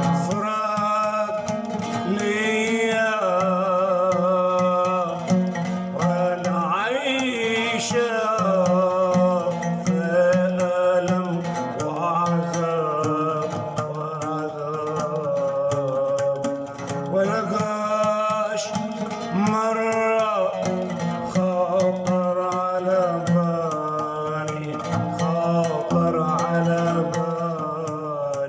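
Arabic song music: a melodic passage led by plucked strings, with wavering, vibrato-laden melody lines over a steady low accompaniment.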